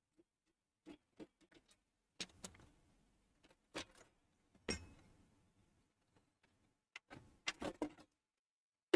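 Scattered light clicks and knocks from hands handling parts inside a desktop PC tower, in a few short clusters.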